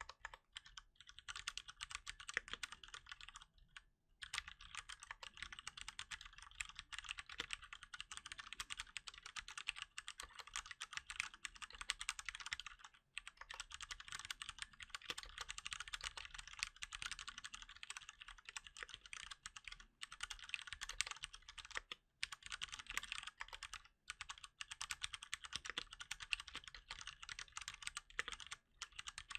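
Continuous typing on a Cherry MX Board 3.0 S mechanical keyboard with Cherry MX Brown tactile switches, uncovered keys clacking quickly with a few short breaks.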